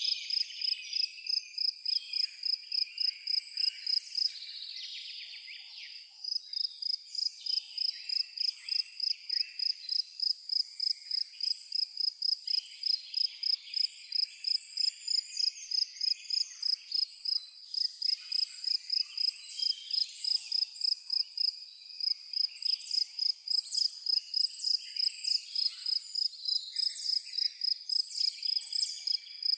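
A cricket chirping in an even, steady rhythm of about two to three high chirps a second, pausing briefly about four seconds in, over a background of birds calling and twittering.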